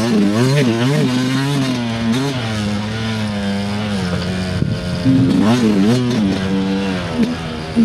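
Dirt bike engine under a rider on a trail, the revs rising and falling with throttle and gear changes: several quick rev swings at the start, a steadier stretch, then more revving about five seconds in.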